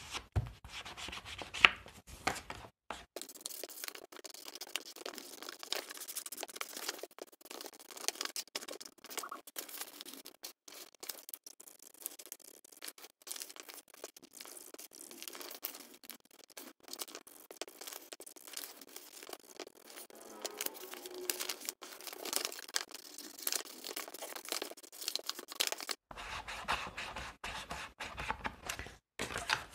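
Ink being rubbed onto the edges of paper with an inking tool to distress them, sped up into a quick, dense, scratchy rustle.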